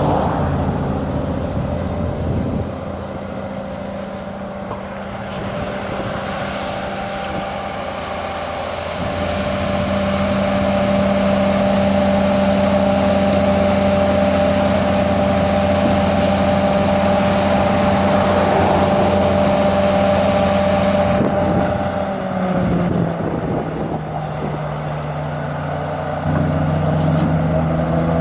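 An excavator's engine and hydraulics are driving a vibro hammer that is extracting a steel H-beam pile. The machine runs with a steady whine, grows louder about 9 seconds in, and drops slightly in pitch about 22 seconds in.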